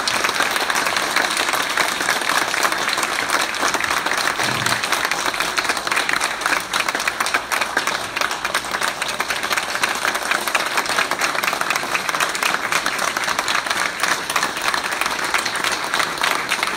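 Large audience applauding, many hands clapping in a dense, steady patter.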